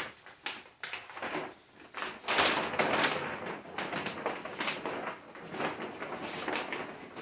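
A large sign and its packaging being handled and pulled about, making irregular rustling and scraping with a few knocks, the longest stretch about two seconds in.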